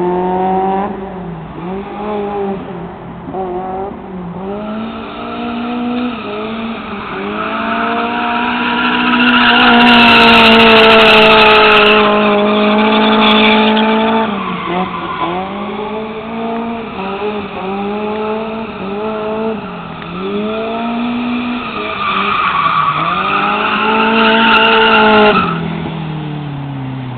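Toyota AE86's high-compression 16-valve 1.6 L four-cylinder engine, with mild cams, revving repeatedly through a Megan Racing drift-spec exhaust. The revs climb and fall in a series of blips, are held high for a few seconds in the middle, and near the end drop back toward idle.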